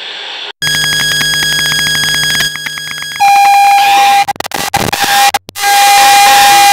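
Harsh electronic noise music. About half a second in, a layered buzzing drone of steady tones cuts in abruptly. About three seconds in it gives way to a loud steady tone over hiss, which stutters and drops out briefly around five seconds before coming back.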